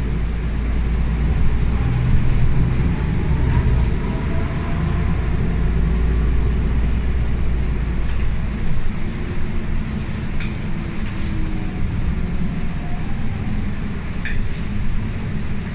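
MAN A95 double-decker bus with a ZF EcoLife automatic gearbox, heard from the upper deck while driving: a steady low diesel engine and road rumble that eases off about halfway through as the bus slows. A couple of short rattles come later.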